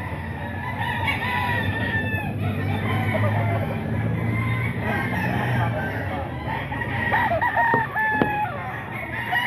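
Several gamecock roosters crowing, their long calls overlapping at different pitches, with some clucking.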